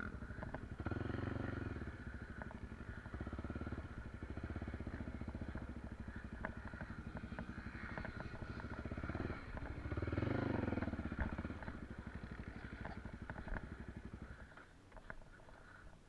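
Trail motorcycle engine running, revving up about a second in and again around ten seconds, then falling away sharply near the end.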